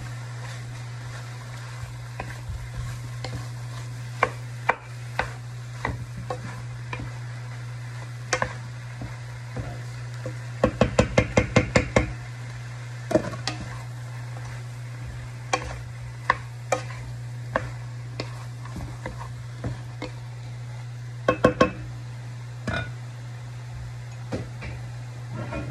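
Wooden spatula stirring and knocking against a large metal wok full of tomatoes and chicken, with scattered sharp knocks, a quick run of about ten knocks near the middle and a short cluster later, over a steady low hum.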